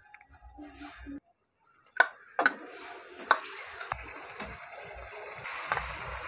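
Raw chicken pieces going into hot ghee and masala in a kadhai: after a near-quiet start, sharp knocks from pieces landing and the spatula against the pan, then a steady sizzle that grows louder near the end as more chicken goes in.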